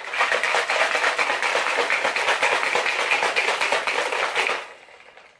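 A plastic shaker cup of G Fuel drink mix being shaken hard: a fast, even rattle and slosh of many strokes a second that stops about four and a half seconds in.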